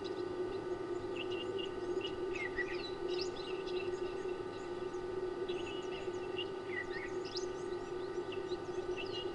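Several birds chirping and calling in short, quick notes that come in bursts, some sweeping down in pitch, over a steady low hum.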